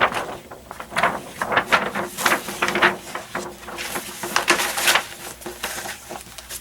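Rustling and crinkling of a large paper poster being handled, in irregular bursts.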